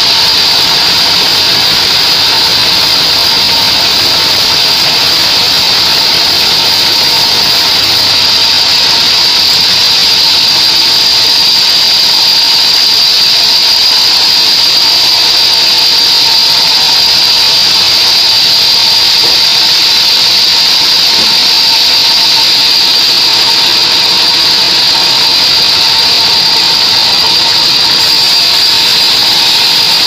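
Band sawmill running and cutting lengthwise through a mahogany log: a loud, unchanging high whine and hiss from the saw.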